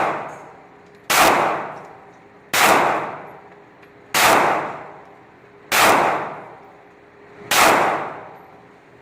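Smith & Wesson Sigma SW9VE 9mm pistol fired five times in slow, steady fire, about a second and a half apart. Each shot has a long echo off the range walls.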